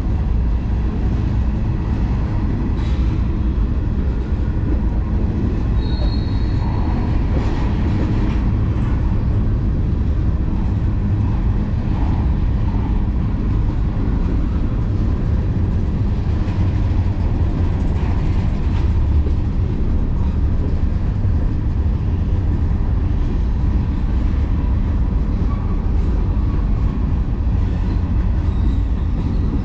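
A CSX freight train rolling past with a steady, heavy rumble of wheels on rail, and a brief high wheel squeal about six seconds in.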